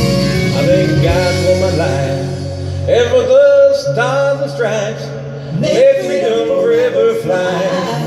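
Country backing track with guitar, and a man singing along into a handheld microphone, holding long notes with vibrato from about three seconds in.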